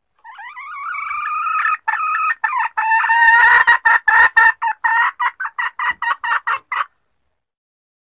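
Junglefowl hen calling: a drawn-out rising call, then a run of short clucks about four a second that stops abruptly.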